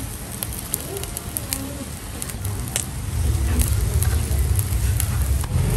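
Seafood sizzling and crackling over a grill fire, with scattered sharp pops. A low rumble comes in about halfway through.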